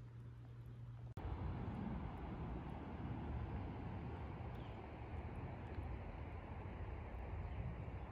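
Wind blowing across the microphone outdoors, a steady low rush that fluctuates in strength; it breaks off for an instant about a second in and comes back louder.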